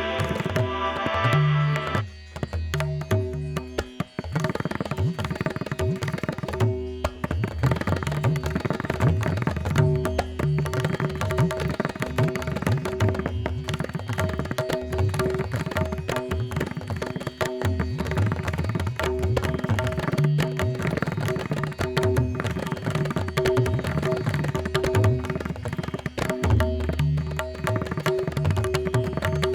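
Background music with tabla drumming over a steady drone, in an Indian classical style.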